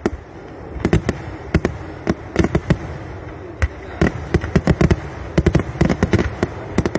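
Kerala temple fireworks (vedikkettu) going off in an irregular string of sharp bangs and cracks, spaced out at first and then a rapid, dense barrage from about four seconds in.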